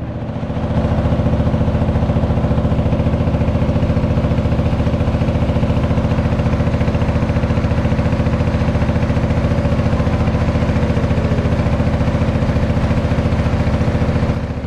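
A boat's engine running steadily with a fast, even throb, heard from inside the covered wooden cabin.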